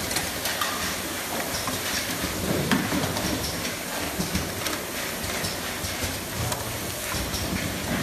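Automatic bottle filling machine running: a steady rushing noise with many small clicks and knocks through it.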